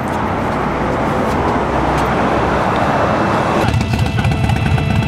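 Steady rushing road-traffic noise that swells slightly; about three and a half seconds in, music with steady held tones comes in over it.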